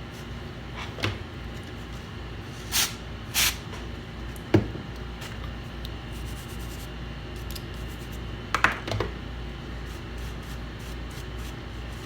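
Small clicks and a sharp knock from tools and parts being handled on a workbench, with two short hissing bursts about three seconds in, over a steady low hum.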